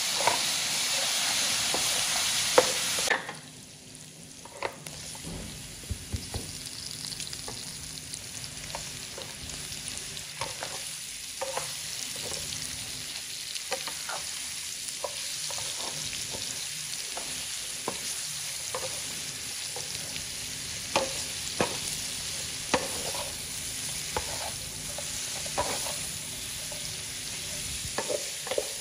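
Ground pork sizzling loudly in hot oil in a wok while being stirred. About three seconds in the sizzle drops off abruptly. It is followed by a softer sizzle with frequent short knocks and scrapes of a wooden spatula against the pan as shredded green papaya is stir-fried.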